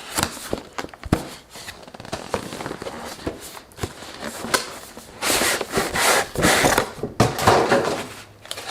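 Graphics-card retail box being opened and its packaging handled: scattered taps and scrapes of cardboard, then louder crinkling and rustling of plastic packaging from about five seconds in until near the end.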